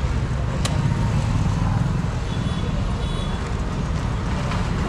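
Steady low rumble of street traffic, with one sharp click about half a second in.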